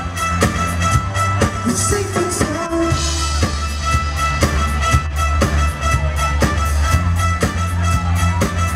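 Live rock band playing: electric guitars, keyboard, bass and drum kit, with a steady beat of about two drum strokes a second and a cymbal crash about three seconds in.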